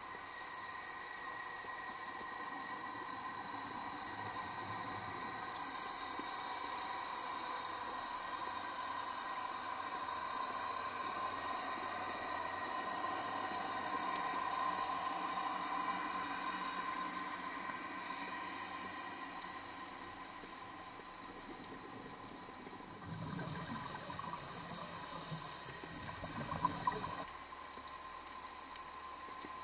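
Underwater sound as a scuba diver's camera picks it up: a steady watery hiss with faint steady high tones, and, from about 23 s in, a few seconds of bubbling from the diver's exhaled air.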